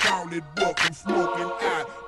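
Hip hop track with rapped vocals over the beat.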